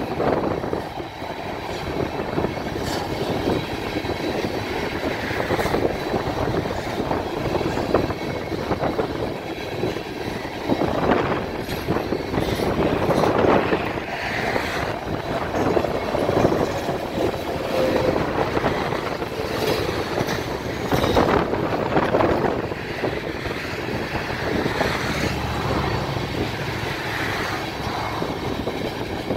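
Freight train of railroad tank cars rolling past, their steel wheels rumbling steadily on the rails, with irregular louder clanks along the way.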